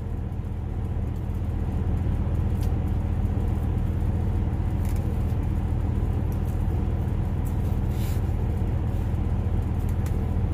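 Steady low rumble of an idling truck engine, even throughout, with a few faint clicks now and then.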